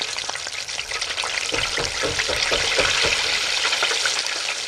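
Floured, buttermilk-marinated rabbit leg frying in a deep fryer's oil at about 160 °C: dense bubbling and crackling sizzle as the freshly lowered piece releases its moisture, growing louder over the first three seconds.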